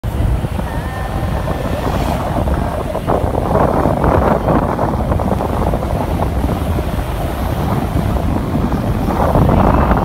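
Wind buffeting the microphone of a moving vehicle, a steady low rumble with road noise underneath.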